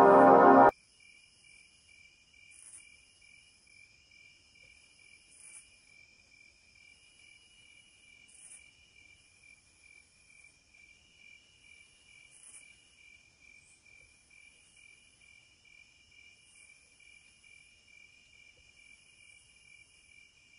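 Music cuts off about a second in, leaving faint, steady insect chirping: a rapid pulsing trill that runs on under the credits.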